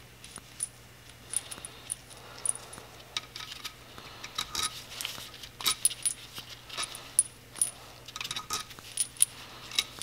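Small steel camshaft-cap bolts on a Yamaha YZ250F cylinder head clinking against each other and the aluminium head as they are pulled out by hand. The clicks come irregularly and grow busier after the first few seconds.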